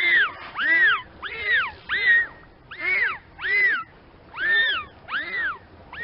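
Dolphin whistles: a quick series of about nine short calls, each rising and then falling in pitch, one roughly every two-thirds of a second.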